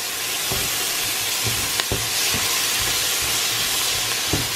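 Diced onion and carrot sautéing in a pot: a steady sizzle, with a few light knocks and scrapes of a spoon stirring against the pot.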